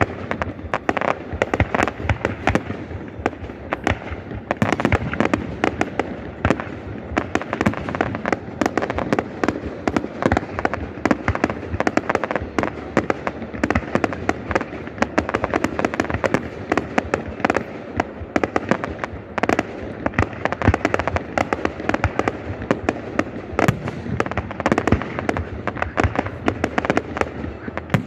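Fireworks display going off: a dense, unbroken run of bangs and crackles, many per second.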